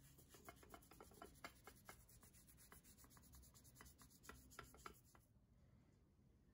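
Faint toothbrush scrubbing on the wet, rust-coated gear wheel of a Goodell-Pratt breast drill: a run of quick back-and-forth bristle strokes that stops a little after five seconds in.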